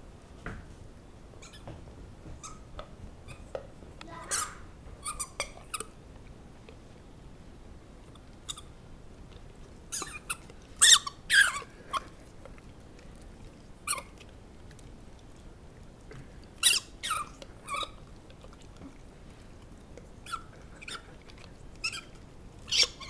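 Squeaky dog toy being chewed by a Great Dane: short, high squeaks in irregular clusters, the loudest a few around the middle.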